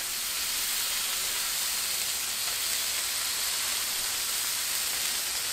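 Raw bacon strips sizzling on a hot Blackstone steel flat-top griddle as more strips are laid down: a steady, even high hiss of frying fat.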